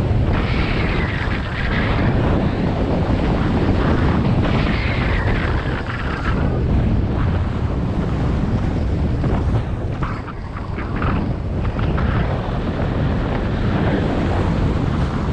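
Wind rushing over the microphone of a skier going downhill at speed, with the hiss and scrape of skis carving on packed snow that briefly brightens during a couple of turns and crackles over ruts.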